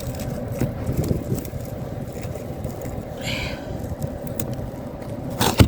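Ice being scraped and knocked off a car's windshield wiper and glass by hand: scattered scrapes and clicks over a steady hum, with a sharp knock, the loudest sound, near the end.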